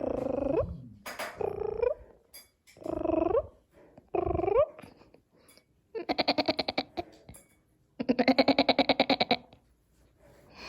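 A woman's voice making strange cat-like noises: four short rising meow-like calls, then two longer rapid rattling trills.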